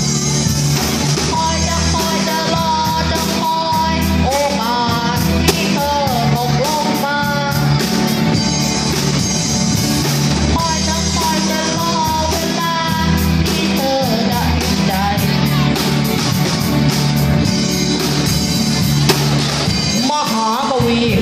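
Live band playing a Thai pop song on electric guitars, keyboards and drum kit, with a lead melody that wavers and bends in pitch over a steady accompaniment.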